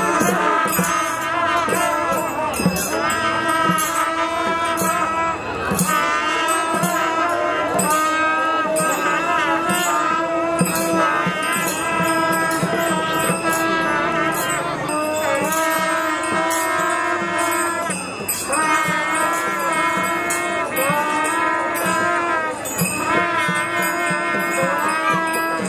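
Newar ritual dance music: a two-headed barrel drum keeps a steady beat with metallic jingling over it, under a long-held wavering melody that breaks off and restarts a few times.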